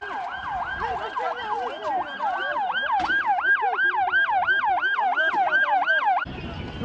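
Emergency vehicle siren in a fast yelp, its pitch sweeping down and back up about three to four times a second, cut off suddenly near the end.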